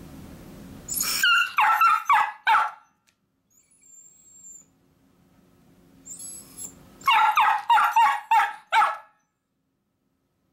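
Miniature dachshund barking high and quick in two bursts of about five or six barks each, with a brief high whine between them. The dog is barking at the door to be taken along as the owner leaves.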